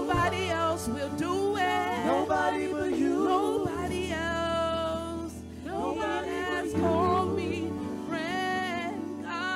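Gospel praise-and-worship song: several singers with microphones holding and bending long notes with vibrato over sustained low accompaniment chords, which change twice.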